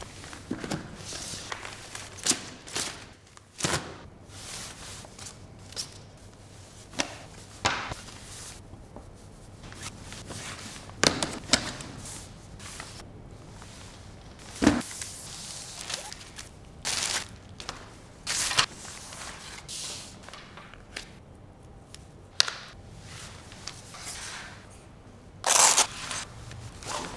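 Unboxing handling sounds: a cardboard box, paper prints and fabric and plastic packaging being opened, slid and set down on a table. Irregular light knocks and rustles, with a few louder ones about 11, 15 and 26 seconds in.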